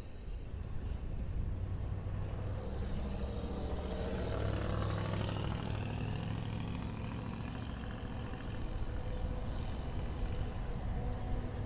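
BNSF diesel-electric freight locomotives rolling past, their engines running with a steady low drone that swells for a moment about halfway through.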